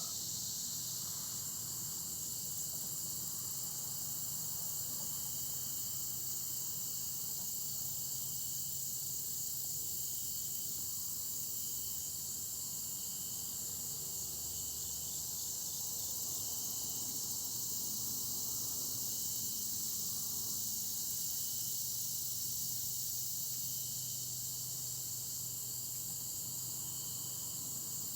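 Steady outdoor insect chorus of crickets: a continuous high trill, with shorter chirps repeating every second or two underneath.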